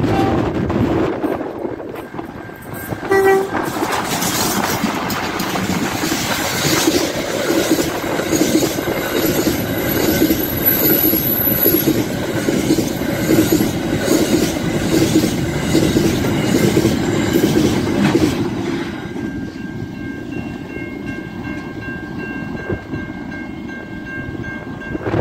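Freight train of container wagons passing: a short horn blast about three seconds in, then a steady clatter of wagon wheels on the rails. The clatter grows quieter near the end as the last wagons go by.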